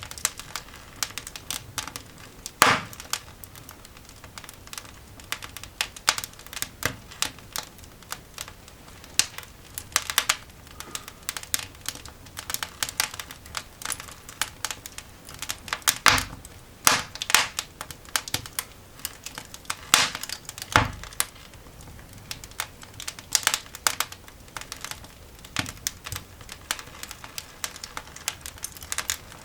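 Coal fire in a cast iron dog grate crackling and popping: a steady run of irregular sharp snaps, with a few louder pops.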